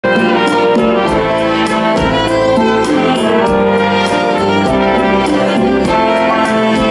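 A live band's brass section of trumpets, trombones and saxophones playing an instrumental passage over a steady drum beat.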